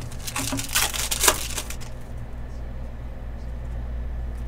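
A foil Panini Select trading-card pack being torn open and its wrapper crinkled: a quick run of crackling rips over about the first two seconds.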